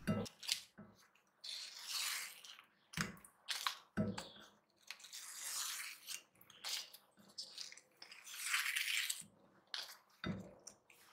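Banana leaf being peeled off a steamed idli and gathered in the hands: faint crinkling and rustling of the leaf in short bouts, with a few soft clicks.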